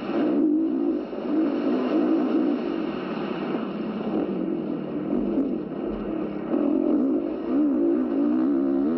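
Dirt bike engine revving up and down as the rider throttles along a motocross track, its pitch rising and falling every second or so. It is heard as video playback through computer speakers, so it sounds thin, with no high end.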